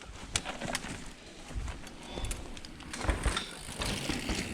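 Mountain bike rolling down a rough dirt trail: scattered clicks and rattles from the bike, with irregular low rumbling thumps, two of them stronger about a second and a half in and about three seconds in.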